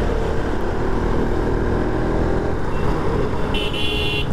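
Motorcycle engine running steadily in city traffic, with road and wind noise. A brief high-pitched beep, like a vehicle horn, sounds near the end.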